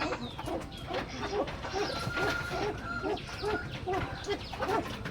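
Chukar partridges calling: a steady run of short, low clucking notes, several birds overlapping at a few notes a second, with a thin held higher note about two seconds in.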